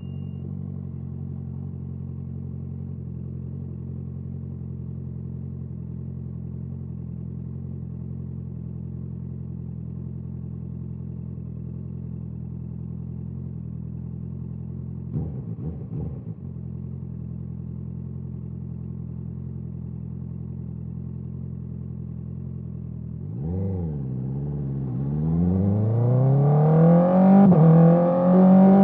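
Honda CBR650R inline-four engine with an Akrapovic exhaust idling steadily for a long stretch, with a brief disturbance about halfway. Near the end it pulls away and accelerates, its pitch climbing and getting louder.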